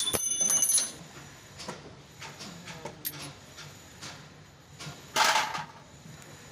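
Metal tools and parts clinking with a bright ring in a quick cluster, then scattered lighter clicks. About five seconds in there is a short, loud scrape or rush.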